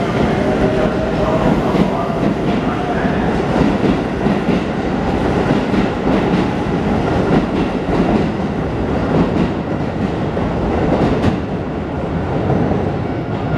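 Commuter train running on the track, a steady loud noise of wheels on rails and running gear, easing slightly near the end.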